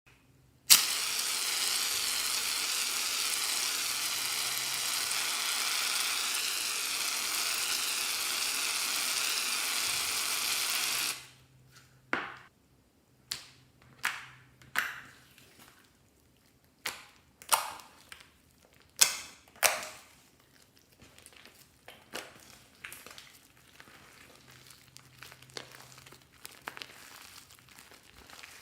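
Slime-making sounds: a loud steady hiss for about ten seconds, then a string of sharp pops or snaps about a second apart, then softer crinkling.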